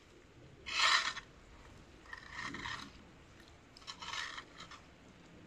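Tines of a manure fork scraping through wet straw and muck over hard ground, three strokes about a second and a half apart, the first the loudest.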